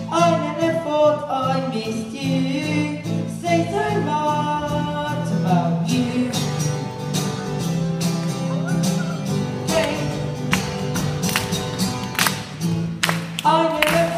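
Live performance by a school pop band: voices singing over a backing of bass and guitar, with drum hits keeping a steady beat.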